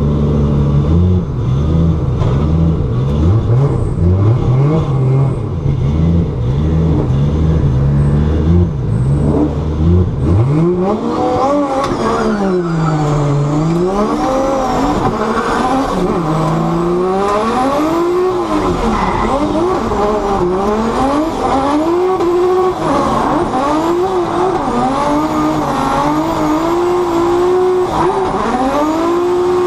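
Toyota drift car's 2JZ inline-six heard from inside the car. For about ten seconds it runs with a low, pulsing note. Then it revs up and down over and over while drifting, with tyre squeal.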